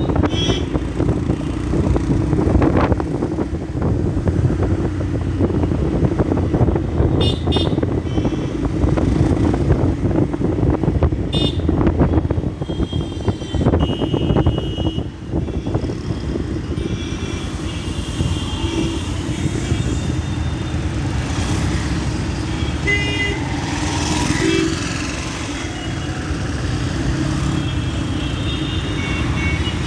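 Yamaha FZ-S single-cylinder motorcycle engine running steadily while ridden through traffic, with vehicle horns honking in short blasts several times.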